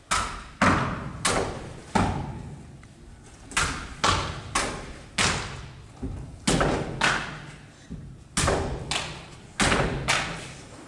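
A katana slicing through rolled tatami-mat targets in quick succession: about fifteen sharp cuts, each with a short echoing tail, in bursts with a brief pause after the first four.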